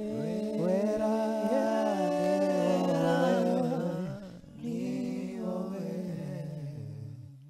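A small group of men singing a gospel song in harmony, mostly unaccompanied. The voices break off briefly about halfway through, come back, and fade out near the end.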